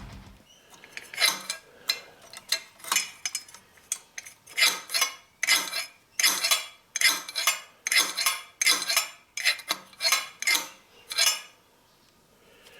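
Small metal parts and tools clinking and clattering as they are handled and set down: a run of about twenty light metallic clinks, irregularly spaced, stopping a little before the end.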